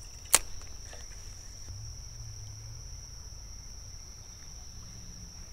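A steady high insect drone, like crickets, runs throughout. One sharp click about a third of a second in comes from the spinning reel being handled for a cast.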